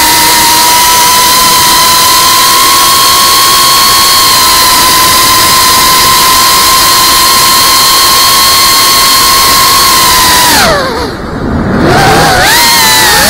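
FPV racing quadcopter's motors and propellers whining at a steady high pitch over a hiss, heard from on board. Near the end the throttle is chopped: the whine drops sharply in pitch and level, then climbs back with a wavering pitch as throttle returns.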